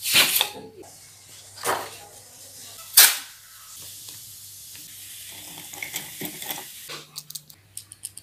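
Handling of a large A3 sheet of drawing paper and its plastic sleeve: sharp swishes and rustles, the loudest about three seconds in, as the sheet is slid out and laid flat and taped down, over a steady low hum. A run of short light clicks comes near the end.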